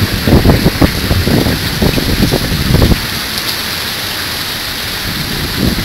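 Heavy rain pouring down in a severe thunderstorm, with irregular low gusty rumbles through the first three seconds, then a steady rush of rain.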